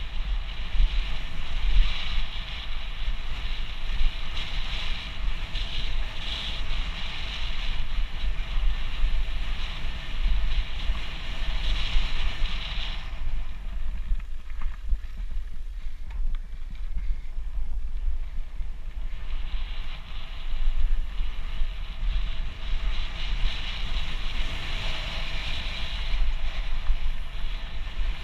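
Mountain bike riding a gravel trail, heard from a camera on the bike or rider: wind buffeting the microphone with a steady rumble, and tyre-on-gravel and bike rattle noise. The hissy trail noise eases off for several seconds about halfway through, then comes back.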